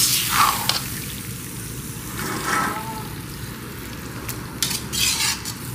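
Potato and cauliflower sizzling in a steel karahi over a low flame, its water already cooked off, while a metal slotted spoon stirs through it, with a few scrapes of the spoon on the pan near the end.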